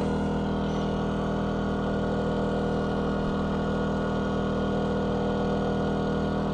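DuroMax XP2000is inverter generator running steadily under a heavy load of about 1500 watts, near its capacity, its engine held up at high speed with an even hum.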